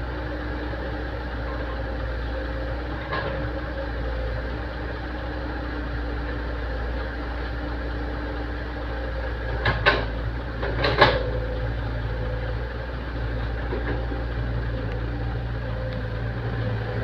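Excavator engine running steadily, with a faint knock about three seconds in and two louder sharp knocks a little past the middle.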